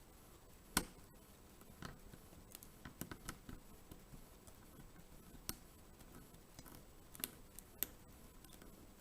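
Faint, scattered metallic clicks of a lock pick and tension wrench working the pins inside a rim cylinder lock, single sharp ticks spaced irregularly, often a second or more apart.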